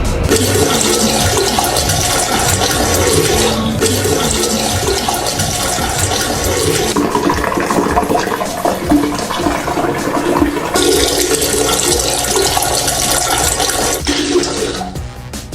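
Water running or gushing steadily, its strength changing in blocks every few seconds.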